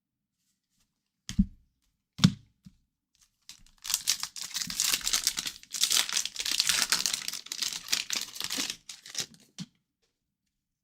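Two short knocks, then a trading-card pack wrapper being torn open and crinkled for about six seconds.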